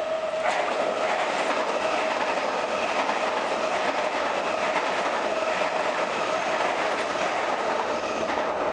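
A train passing on the neighbouring rail bridge: a steady loud rumble of wheels on track with a held hum, swelling at the start and holding level throughout.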